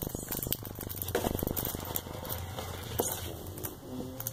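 Scattered light rustling and small taps from handling paper and small items of an owl pellet dissection kit at a table, over a faint steady low hum.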